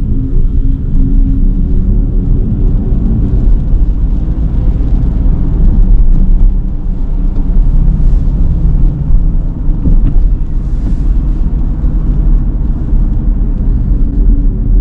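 Cadillac Lyriq electric SUV driving, a loud, steady low rumble of road and motor noise.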